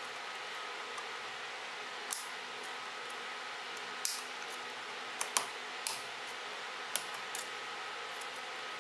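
Small scissors snipping at wires inside a camera body: a handful of short, sharp clicks spread irregularly over several seconds, over a steady faint hiss.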